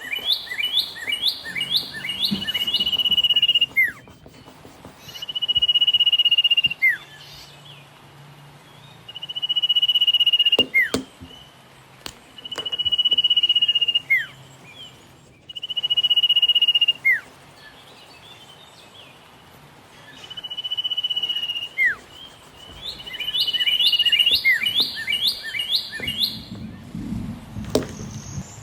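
A bird singing the same phrase over and over, roughly every three to four seconds: a quick run of short notes, then one long, level whistle that drops away at the end. There are a few faint knocks between phrases.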